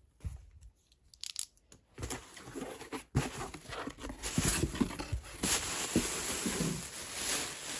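Packing tape on a cardboard parcel being slit and torn open, then the cardboard flaps and the plastic wrapping inside rustling and crinkling. Only a few faint clicks at first; the tearing and rustling begin about two seconds in and go on without a break.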